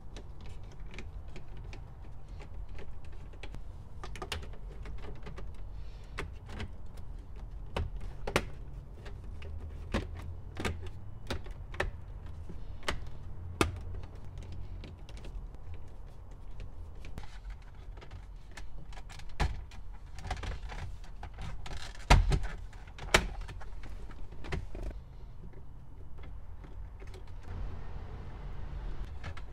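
Scattered clicks, taps and knocks from a screwdriver and a VW Jetta's plastic dashboard trim as the radio is screwed into its dash kit and the trim panels are pressed back into place. A couple of louder knocks come about two-thirds of the way through.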